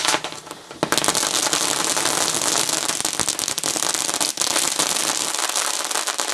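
A batch of 37 Powerball crackling fireworks going off together. A sudden burst as they ignite, then about a second in a dense, continuous crackling of countless tiny bangs.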